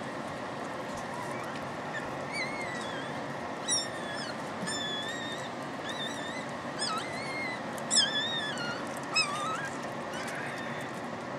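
Newborn puppy crying in a series of short, high, squeaky wavering cries, the loudest about eight seconds in, over a steady background hiss.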